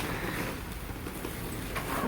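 Rustling and shuffling of clothing against a padded chiropractic table as the patient is moved into position for a back adjustment, with no sharp joint crack.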